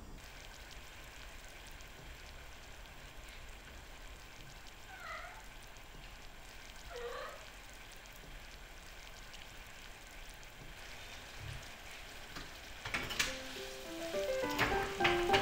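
Sugar and corn syrup boiling down in a saucepan on a gas burner: a faint, steady sizzling bubble. Two short calls that fall and then rise in pitch come about 5 and 7 seconds in, and soft music with plucked or struck notes starts near the end and is the loudest thing.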